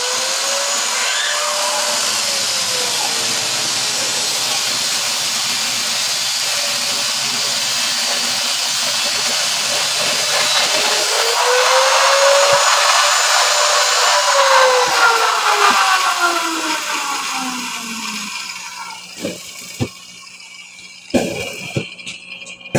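Handheld angle grinder running against steel with a steady hiss. Its motor pitch rises, sags and picks up again, then winds down and stops about three-quarters of the way through.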